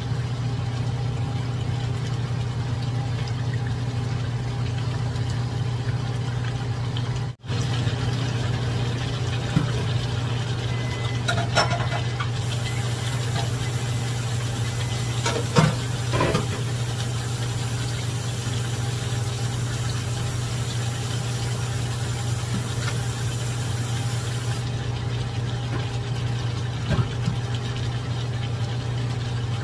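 Steady low mechanical hum that cuts out for an instant about seven seconds in, with a few faint clicks and taps around the middle and near the end.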